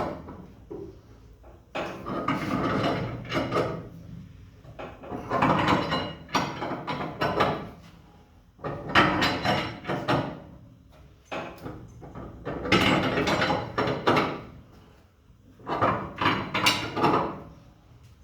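A wrench being worked on the nut of a homemade coil-spring compressor's threaded rod, letting a car's front coil spring down: a clattering, scraping stroke every three to four seconds, five in all, with short pauses as the wrench is reset.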